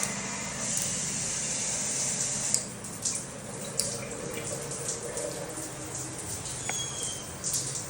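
Water running from a tap, strongest for the first two and a half seconds, then running lower with a few short knocks and clicks.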